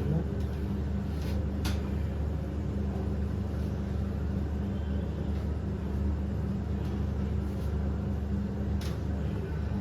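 Steady low hum, with two faint sharp clicks, one about two seconds in and one near the end.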